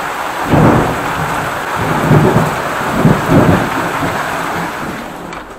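Heavy rain pouring steadily onto corrugated metal and tile roofs, with deep rumbles swelling and fading several times.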